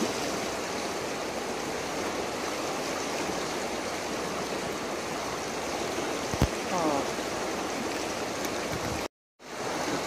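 A river flowing, a steady rushing of water. About six and a half seconds in there is a sharp click and a short vocal sound, and near the end the sound cuts out completely for a moment.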